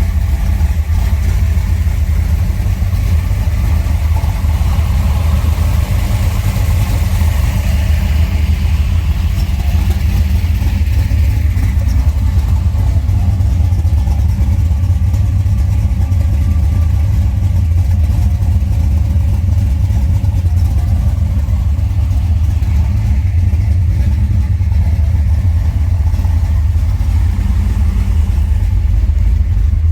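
A 383 stroker small-block V8 with a double-pumper carburetor and Flowmaster exhaust, running steadily with a deep, even rumble.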